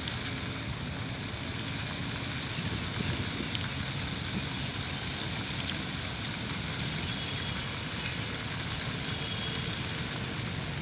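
Water from a fountain's many jets falling back into its pool: a steady splashing hiss.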